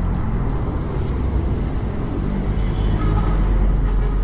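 Engine running steadily among road traffic, with a low hum and a haze of road noise.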